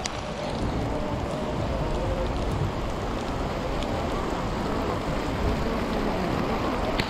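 Steady rain falling, with a sharp click near the start and another near the end.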